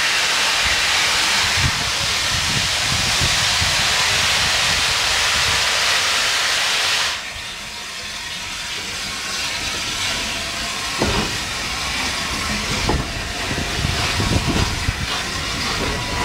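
Loud steam hissing from the Peppercorn A1 Pacific steam locomotive Tornado, cutting off suddenly about seven seconds in. Then the train moves off slowly with a low rumble and a few clanks from the coaches.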